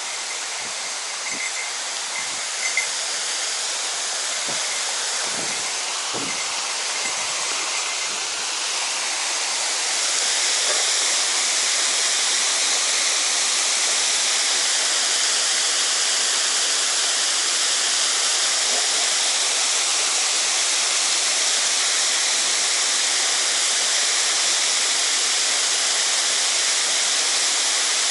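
Mountain-stream water rushing and pouring over a check dam: a steady rush of falling water that steps up in loudness about ten seconds in. A few soft low knocks in the first several seconds.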